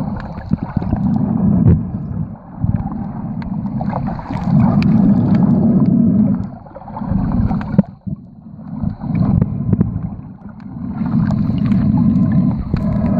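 Muffled underwater rushing and rumble picked up by a camera in its waterproof housing as it moves through shallow sea water. It swells and fades every two to three seconds, dropping almost away about two-thirds of the way through, with scattered sharp clicks over it.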